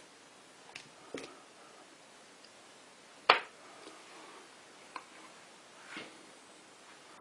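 A few light clicks and taps of small hard parts or tools being handled, with one sharp, louder click a little over three seconds in.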